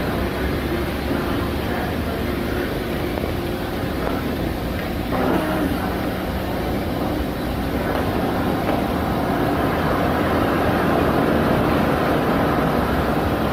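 A steady low rumbling noise, with a short falling voice-like sound about five seconds in.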